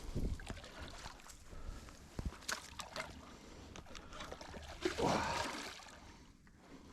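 Water sloshing and splashing at the river's edge as a big hooked pike is played close in, with a few dull knocks of handling near the start and the loudest splashy swell about five seconds in.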